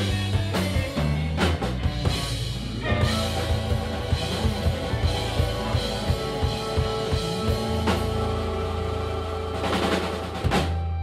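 Live blues band playing an instrumental passage with no vocals: drum kit, electric guitar and keyboard, with a harmonica played into the microphone.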